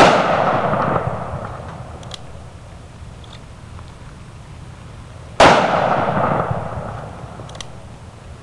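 Two shots from a Ruger revolver in .454 Casull with a 2-inch barrel, about five and a half seconds apart. Each is a sharp crack followed by an echo that dies away over about two seconds.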